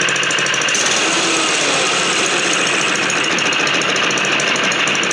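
Baja Doodlebug mini bike's 97cc single-cylinder four-stroke engine running steadily.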